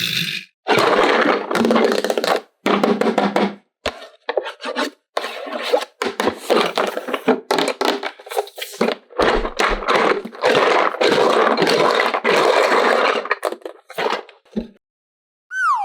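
Toy packaging being handled and opened by hand, cardboard and plastic scraping and rustling in a string of short bursts with a few knocks.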